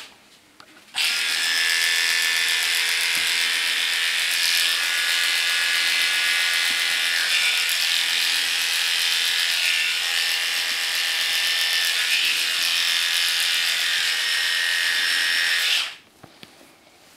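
Cordless electric dog clippers running steadily as they clip the hair on a poodle's face. They are off for about the first second, switch back on, and cut off suddenly near the end.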